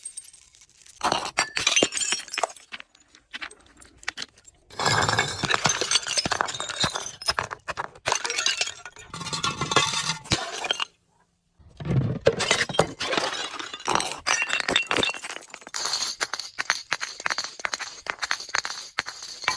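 Glass bottles being crushed and broken: dense crunching, cracking and clinking of shattering glass in long stretches, with quieter pauses in the first few seconds and a brief gap of silence a little past the middle.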